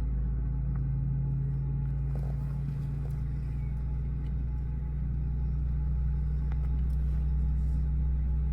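Steady low drone of a moving airliner's engines, heard inside the passenger cabin.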